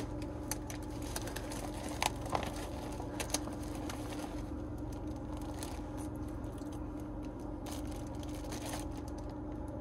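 Soft rustling and crinkling of a plastic zip-top bag and a paper box as dry fish batter mix is poured into the bag and pieces of fish fillet are dropped in, with a few light clicks over a steady low hum.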